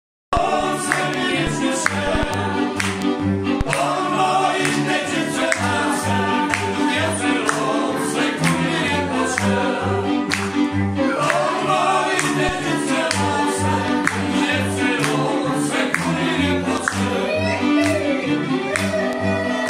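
Górale folk band playing a lively tune: several fiddles carrying the melody over a bowed basy (folk bass) marking the beat about twice a second, with men's voices singing along.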